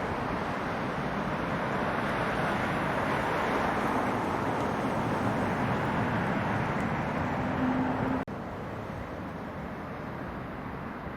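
Steady rushing jet engine noise from an airliner, mixed with wind on the microphone. It swells slightly in the middle, then cuts off abruptly about eight seconds in to a quieter steady rush.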